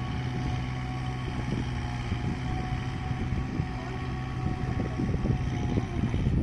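Kubota MU4501 tractor's four-cylinder diesel engine running steadily as it works a flooded paddy field, under wind rumble on the microphone. The engine's hum fades about two-thirds of the way through while the wind gusts grow stronger.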